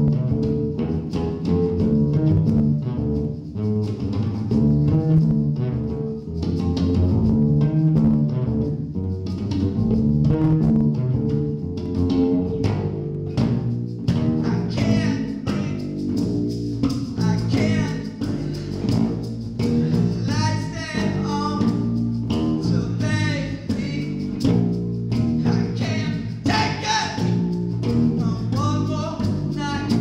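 Acoustic bass guitar played solo, plucked notes in a steady rhythm; about halfway through, a man's voice starts singing over it.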